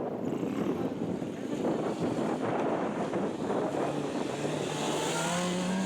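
Strong wind buffeting the microphone. About four seconds in, a Honda CBR600RR's inline-four engine comes up and rises steadily in pitch as the bike accelerates.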